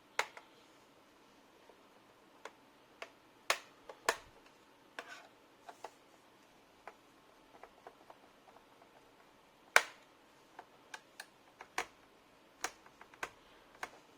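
Small screws being removed from a laptop's plastic bottom cover: irregular light clicks and taps of the screwdriver and screws, with a few sharper knocks.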